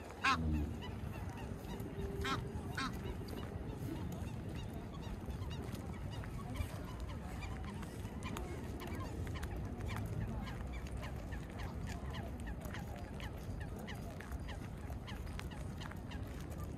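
Geese honking, a few loud calls in the first three seconds, then steady low background noise with faint ticks.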